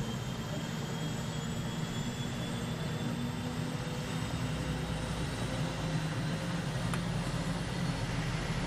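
Eurocopter Super Puma helicopter running on the ground with rotors turning before takeoff: a steady rumble of its twin turboshaft engines and rotor, with a faint high turbine whine.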